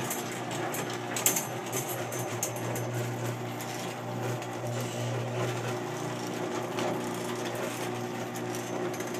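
Raynor Pilot 2265 RGD 1/2 HP garage door opener running as it raises the door: a steady motor hum with scattered clicks and rattles from the drive. It makes a ton of noise, a lot louder than it should be, from a fault the owner cannot pin down.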